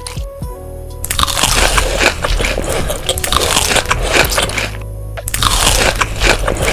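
Loud close-miked crunching and chewing of crisp food, with two short pauses, one in the first second and one about five seconds in. Soft background music shows through in the pauses.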